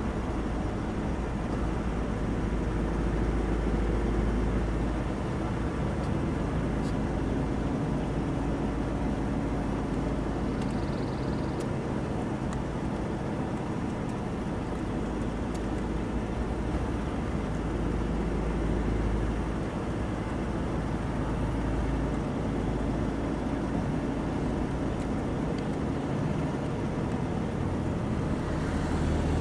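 A parked car idling: a steady low engine hum and rumble with a few faint clicks.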